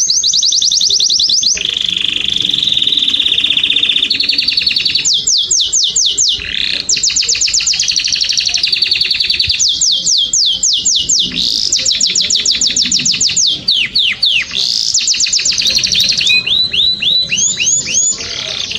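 Domestic canary singing a long, unbroken song. Fast, even trills alternate with runs of quick downward-sweeping whistle notes, and the phrase changes every second or two.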